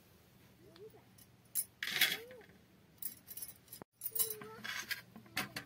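Steel spoon clinking against a stainless-steel bowl as spice powder is tapped in, a series of light metallic clinks.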